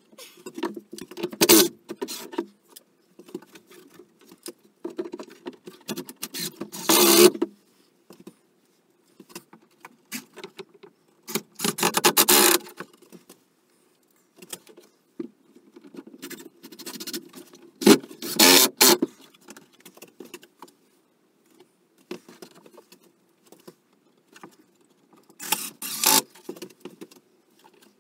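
Cordless drill driving screws into a wooden brace in about five short runs of a second or so each, with small clicks and handling noises between them.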